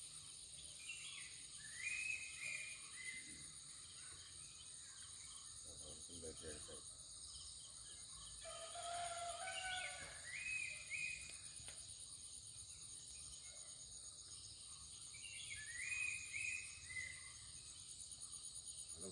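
Steady high-pitched chorus of insects, with a bird calling three times in short, stepped, falling phrases and another lower call in between.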